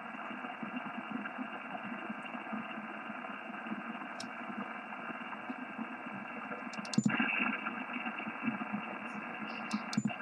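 Yaesu FT-1000MP receiver audio on the 11-metre band: steady band noise hiss, cut off above the pitch of the receive filter, with faint speech-like signals mixed in. Two sharp clicks, about seven and ten seconds in, as front-panel buttons are pressed. The first click brings a brief jump in loudness.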